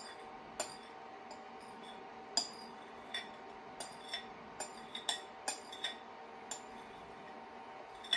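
Spoon clinking and scraping against a glass bowl in irregular sharp, ringing clinks, about one or two a second, as tapioca starch slurry is scraped out into a saucepan. A faint steady hum runs underneath.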